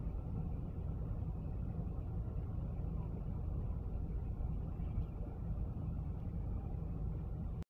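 Rushing floodwater: a steady low rumble of a fast torrent, cutting off suddenly at the very end.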